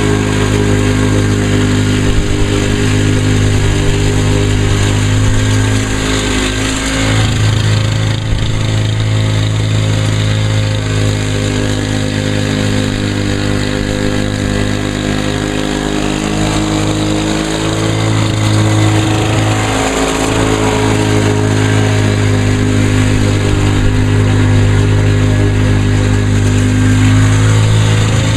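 Lawn-Boy Duraforce walk-behind mower's two-stroke engine running steadily while cutting grass, its note briefly dipping a few times as the load changes.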